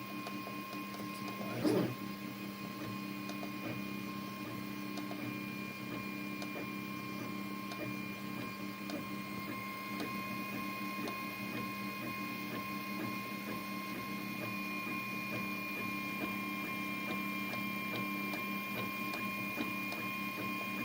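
Anet A8 3D printer running a print: steady motor tones with a fine, constant crackling, and one short knock about two seconds in. The crackling is what the owners put down to the drive belt's teeth hitting a smooth idler bearing.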